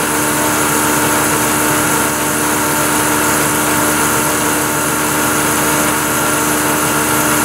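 Vertical milling machine running with a small end mill climb-milling the front edge of a narrow slot in a metal spindle: a steady machine hum with several steady tones.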